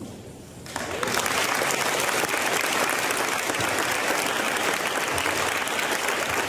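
Audience applauding, a dense, steady clapping that starts within the first second.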